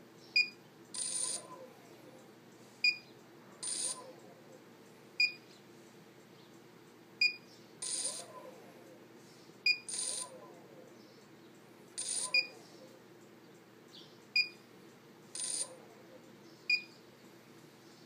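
An electric motor and its electronic speed controller (ESC): short, high beeps repeat about every two and a half seconds, and after most of them comes a brief rough burst with a quick whine as the motor jerks without running up. This is the sign of a fault that may lie in either the motor or the ESC.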